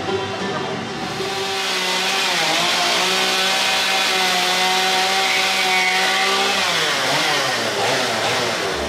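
Stihl two-stroke chainsaw running at high revs while carving a block of wood, its pitch dipping and recovering a few times.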